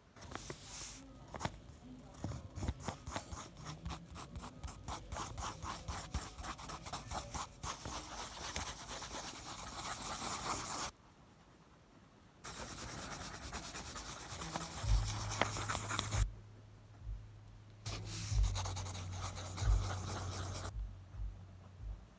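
Pencil scratching on paper in quick looping scribble strokes, in spells broken by two short pauses and stopping shortly before the end. A few low thumps sound in the second half.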